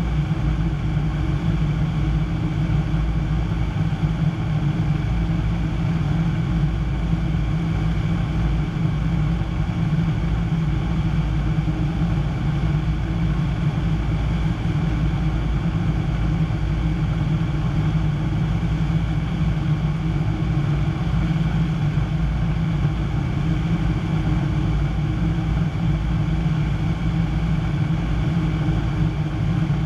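Piper PA-25-235 Pawnee's six-cylinder Lycoming engine and propeller running at a steady, unchanging drone, heard from inside the cockpit.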